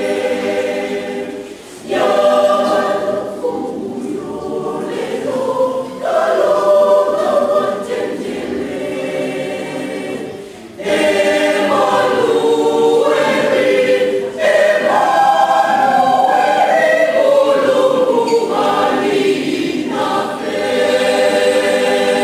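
Mixed choir of women's and men's voices singing a Chichewa hymn together, in phrases separated by short breaks.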